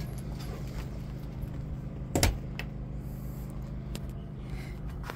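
Steady low hum of a running Champion 4650 inverter generator, with a single sharp knock about two seconds in and a few faint clicks.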